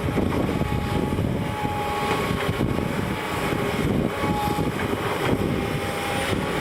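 Diesel engine of a heavy earthmoving machine, a digger or bulldozer, running with a steady rumble. A faint higher whine comes and goes a few times over it.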